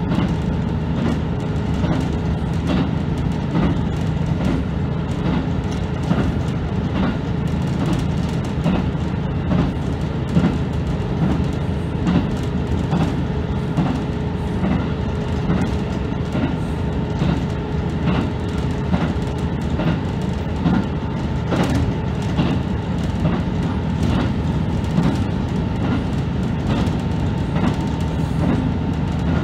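Diesel railcar running at speed, heard from inside the front car: a steady low engine hum with the regular clickety-clack of the wheels over the rail joints.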